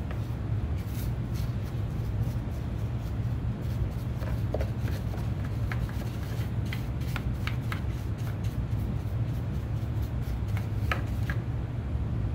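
Bristle brush stroking and dabbing stain onto a wooden guitar body: irregular soft scratchy strokes and light taps, over a steady low hum.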